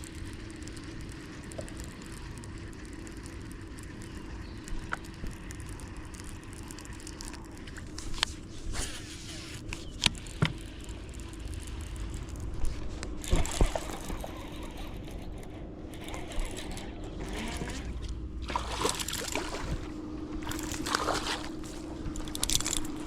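Boat engine running steadily at idle, with water sloshing and scattered sharp clicks and knocks from gear being handled in the boat.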